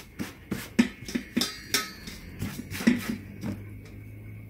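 Light, irregular taps and knocks of a round metal baking pan being handled on a table as a sheet of rolled dough is pressed into it, then a low steady hum from about three and a half seconds in.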